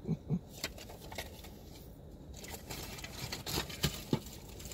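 Action-camera accessory kit being rummaged through by hand: packaging rustling and crinkling, small parts scraping and clicking, with a few light knocks toward the end.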